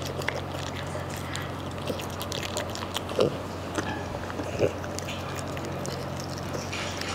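Small dog chewing raw dog food from a bowl: irregular soft crunching and clicking, with two louder knocks about three and four and a half seconds in.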